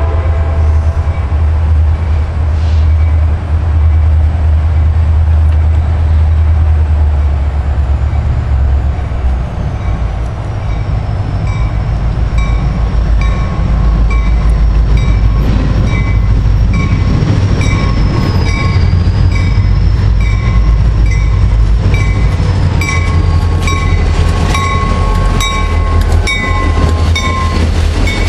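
Diesel freight train approaching and drawing alongside: a steady low rumble, joined about halfway by a faint high whine and regularly spaced clicks of wheels over the rail joints.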